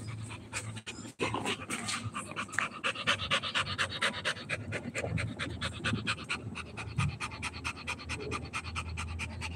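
Rottweiler panting hard and fast, several quick breaths a second.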